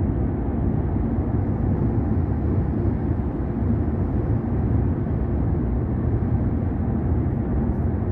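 Steady low road and engine noise heard from inside a car's cabin while it drives along a highway.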